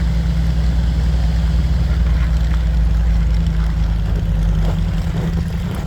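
Vintage Bombardier wide-gauge snow bus engine running with a steady low drone as the machine is driven out under its own power, easing a little near the end.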